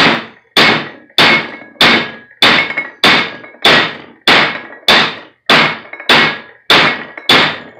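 A ball peen hammer strikes the steel H-shaped centre yoke of a Ford F-250 CV drive shaft head in about thirteen even blows, a bit under two a second, each ringing briefly. The blows drive the U-joint bearing caps up out of the yoke.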